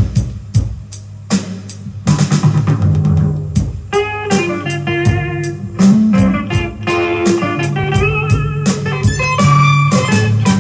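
Rock/blues music played through a pair of Victor/JVC SP-MXX1 three-way bookshelf speakers: a drum beat over a bass line, filling out about two seconds in, with a guitar melody coming in about four seconds in.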